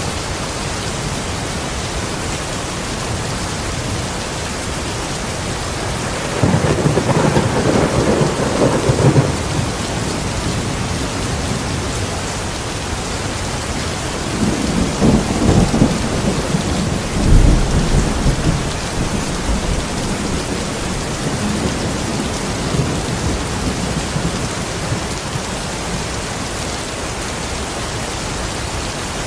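Steady rain with thunder: two low rolls of thunder swell up over the rain, one about six seconds in lasting a few seconds, and another from about fifteen seconds that peaks near eighteen seconds.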